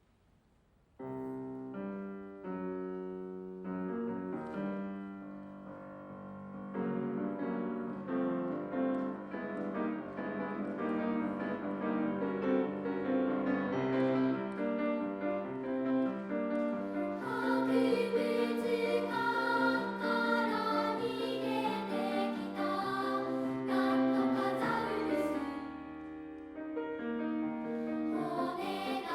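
Upright or grand piano starts the introduction about a second in, then a three-part children's choir of elementary-school pupils sings with the piano accompaniment.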